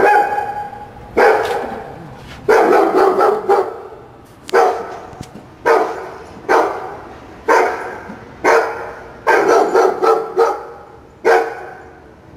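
Small dog barking repeatedly, roughly once a second, with some barks coming in quick runs of two or three.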